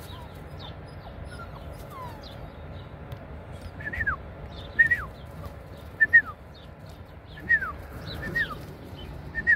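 Kangal puppy whining: about six short, high cries that each fall in pitch, starting about four seconds in and coming roughly once a second.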